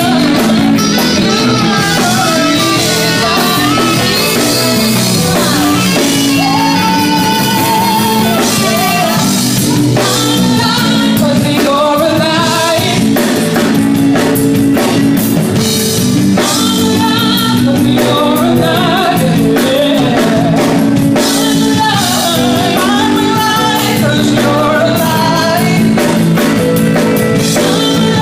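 Live gospel band playing loudly and steadily: drum kit, electric guitar, keyboard and saxophone, with singing over the top.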